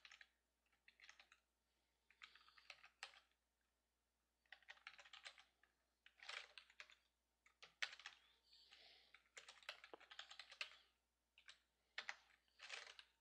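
Faint typing on a computer keyboard: short runs of keystrokes with pauses between them.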